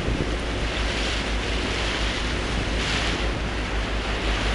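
Wind buffeting the microphone on the open deck of a moving car ferry, over a steady rush of water along the hull that swells now and then.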